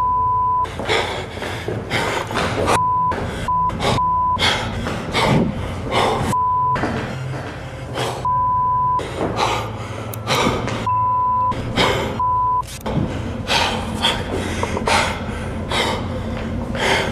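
A man breathing hard and gasping while moving with a handheld camera, cut about eight times by short, steady, high bleeps of the kind used to censor swearing.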